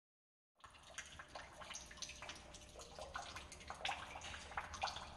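Water dripping and trickling in a cave, many irregular drops and splashes over a low steady hum, starting suddenly out of silence about half a second in.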